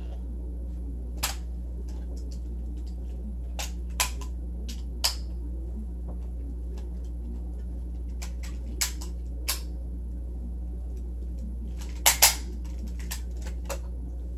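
Scattered sharp clicks and taps at irregular intervals, the loudest a quick pair about twelve seconds in, over a steady low hum.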